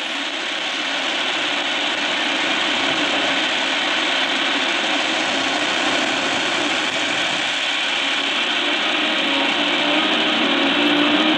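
Shortwave radio receiver audio from an AM broadcast on 6085 kHz: a steady hiss of static that slowly grows louder, with the station's audio starting to come through near the end. The signal is rising out of the noise now that a ground connection has been added to the simple wire antenna.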